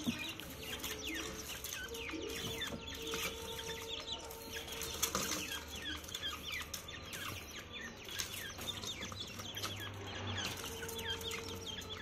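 Grey francolins chirping: a steady stream of short, high chirps that slide down in pitch, several a second.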